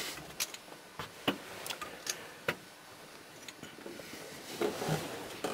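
Faint, irregular clicks and taps, a few a second, with a brief rustle about four and a half seconds in.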